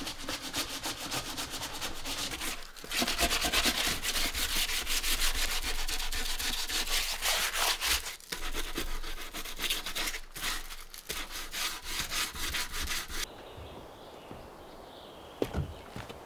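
Rapid, continuous rubbing strokes, scraping like sanding or sawing at wood, with brief pauses. The rubbing stops abruptly about thirteen seconds in, followed by a single sharp click.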